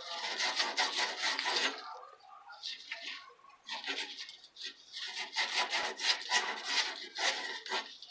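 Pipe being cut by hand with rapid back-and-forth rasping saw strokes, coming in several bursts with short pauses.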